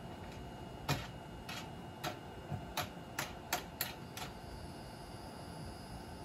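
About eight sharp clicks and light knocks at irregular intervals, bunched between one and four seconds in, from tools and bolt hardware being handled while an outrigger kit is assembled.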